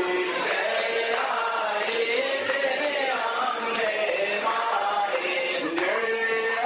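Devotional chanting sung to a slow melody, with long held notes that glide smoothly in pitch.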